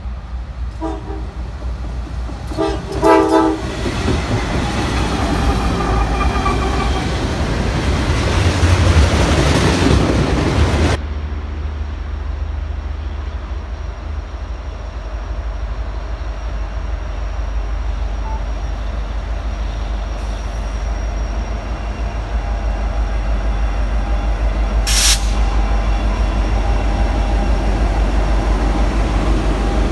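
Norfolk Southern diesel freight locomotives approaching and passing with an intermodal train. The horn gives short blasts, then a long blast that cuts off suddenly about eleven seconds in. After that come the steady low rumble of the diesel engines and the rolling of wheels on rail, with one sharp crack about twenty-five seconds in.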